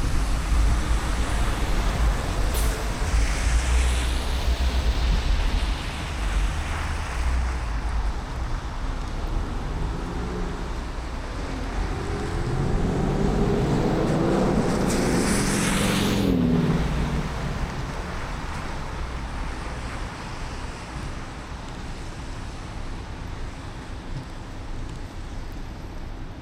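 Steady tyre and road hiss from a car driving on wet city streets in the rain. About halfway through, another vehicle passes with a swell of wet-tyre hiss, its engine pitch falling as it goes by.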